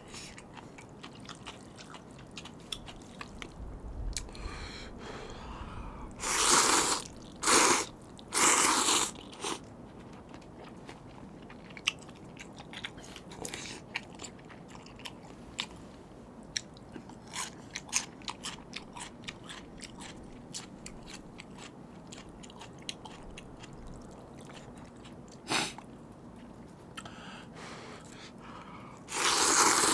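Close-miked eating of spicy seafood noodles: steady wet chewing and small clicks throughout, with several loud slurps of noodles, three in quick succession about a third of the way in and two more near the end.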